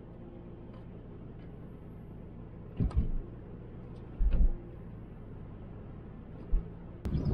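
Car engine and road noise heard inside the cabin while driving, a steady hum broken by a few short low thumps.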